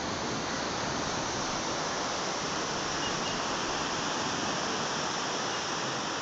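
Steady, even rushing of sea surf breaking on a beach.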